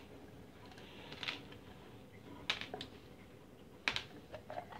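A handful of separate clicks and taps of a screwdriver on a dishwasher's plastic electrical junction box as its cover screws are backed out and the box is handled. The sharpest clicks come about a second in, in the middle and near the end.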